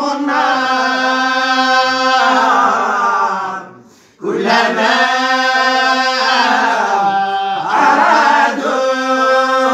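Group of voices reciting the Quran together in unison, chanting long, drawn-out melodic phrases. There is a short break for breath about four seconds in, then the next phrase begins.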